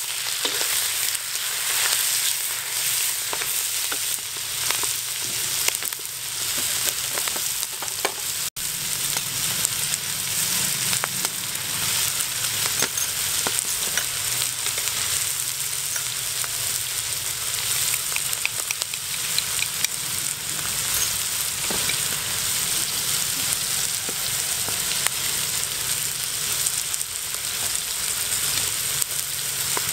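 Shelled mussels with chili and lemongrass sizzling in a hot wok, stirred and scraped with a wooden spatula, with small ticks and pops over a steady frying hiss. The sound drops out for an instant about eight seconds in.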